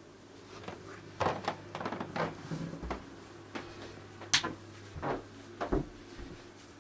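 A string of irregular knocks and clunks, a dozen or so, over a steady low hum.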